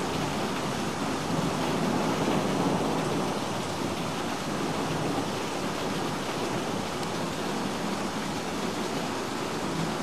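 Heavy rain pouring steadily onto paved ground during a thunderstorm, an even hiss of the downpour.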